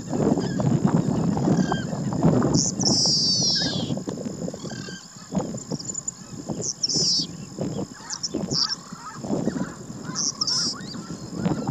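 Yellowish pipit song: a high, buzzy note sliding steeply downward about three seconds in, followed later by a few shorter high notes. A louder, irregular jumble of low sounds runs underneath, heaviest in the first few seconds.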